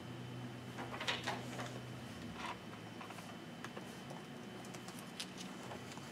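Paper being handled and pages turned: a few short, scattered rustles and clicks over a faint, steady room hum.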